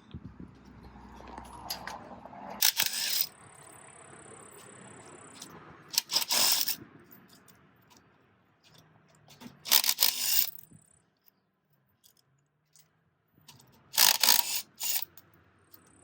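Bosch cordless lithium-ion impact wrench rattling in four short bursts a few seconds apart, loosening the lug nuts on a Jeep Wrangler's front wheel.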